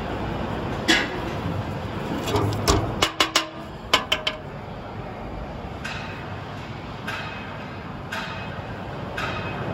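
Metal knocking and clinking on a steel checker plate as a cut steel part and a metal rod are handled: a single tap about a second in, a quick run of sharp clinks around three to four seconds in, then a few softer knocks. A steady workshop hum runs underneath.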